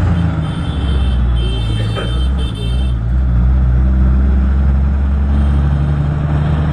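Engine and road noise heard from inside a moving vehicle: a loud, steady low rumble, with a thin high whine over it for the first three seconds.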